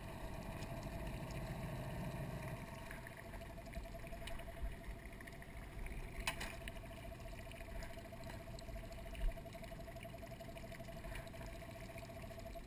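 Small outboard motor on an aluminium dinghy running at low speed, a steady even whine, moving the boat slowly. One light knock about six seconds in.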